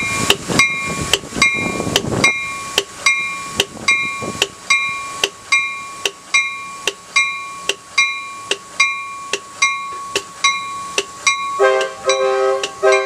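Railroad grade-crossing bell ringing steadily, about two and a half strikes a second. Near the end an Amtrak Pacific Surfliner train's horn sounds as its cab car arrives; a rushing noise fills the first two seconds.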